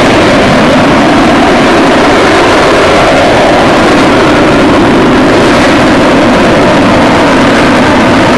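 Avro Vulcan XH558's four Rolls-Royce Olympus turbojets, a very loud, steady jet roar as the delta-wing bomber flies past low and pulls up into a steep climb.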